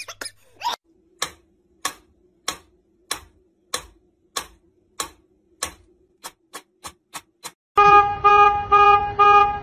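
Mechanical pendulum metronome ticking steadily, about one and a half ticks a second, with quicker ticks just before the end. Then a car horn honks four times in quick succession, louder than the ticking.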